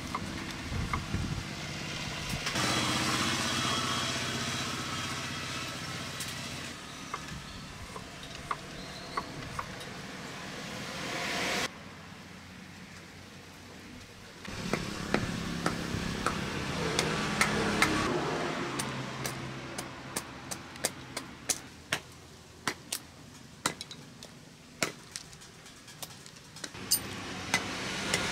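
Steel knife blade striking and cutting into a thin wooden stick laid on a wooden block: a run of sharp, irregular knocks in the second half, over steady background noise.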